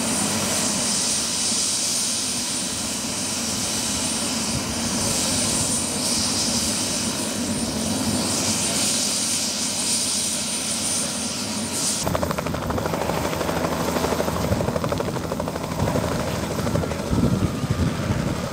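Light two-bladed helicopter running on the ground: a steady high turbine whine over the rotor noise. About twelve seconds in, the sound changes abruptly as the whine drops away and a deeper, fast-pulsing rotor beat takes over while the helicopter lifts off and climbs.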